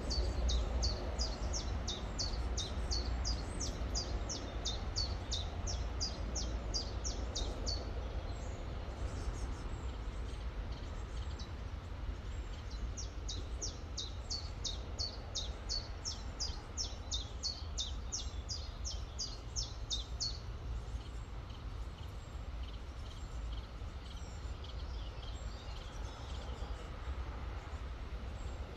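A songbird repeating a rapid series of high, downward-slurred notes, about four or five a second, in two long runs (the second starting about 12 seconds in), over the steady rush of a flowing river with a low rumble.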